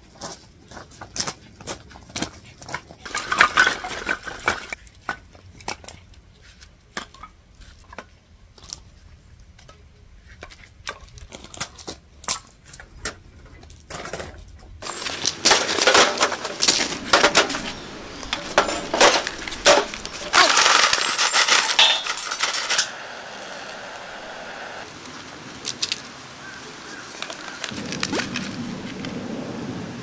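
Scattered clicks and knocks as firewood is handled and set up for a campfire. About halfway through comes a stretch of louder crackling and rustling as the fire is lit, settling into a steady hiss near the end.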